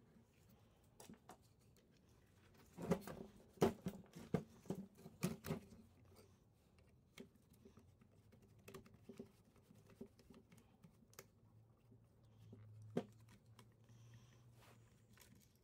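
Small clicks and knocks of hands handling the plastic and metal parts of a car tyre air compressor and a screwdriver working out the screws of its plastic housing, with a cluster of louder knocks about three to five and a half seconds in.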